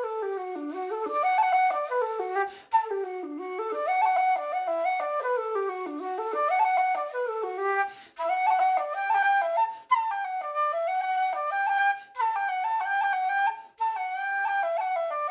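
Closing music: a solo flute-like wind instrument playing a melody in quick runs of notes, broken by short pauses between phrases.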